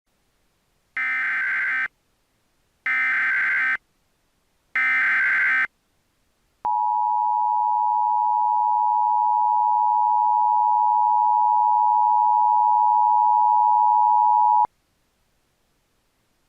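Emergency Alert System SAME header: three separate bursts of warbling digital data tones, each about a second long, followed by the steady two-tone EAS attention signal held for about eight seconds before it cuts off abruptly. Together these tones announce the start of an emergency alert message.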